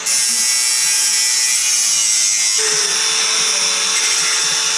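Bicycle handlebar being cut down to about 760 mm wide: a steady, hissing cutting noise that starts abruptly, with a faint low beat about twice a second.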